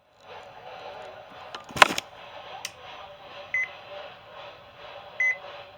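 A sharp click about two seconds in, then short high electronic beeps, one at a time: one about a second and a half after the click and another near the end.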